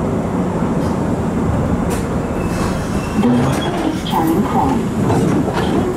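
London Underground Bakerloo Line tube train running at speed, a steady heavy rumble of wheels on rail, with a brief thin wheel squeal a little past the middle.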